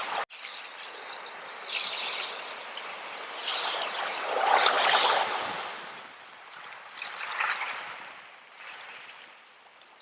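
Sea water washing over a bed of seashells, the shells rattling and clinking as the water rushes in and drains back, in several surges with the loudest about halfway through.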